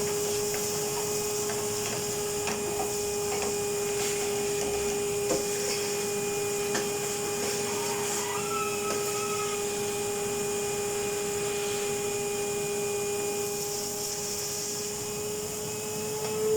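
Henry vacuum cleaner running steadily, its motor giving a constant hum and hiss as it sucks out the wood burner. Occasional faint clicks sound through it.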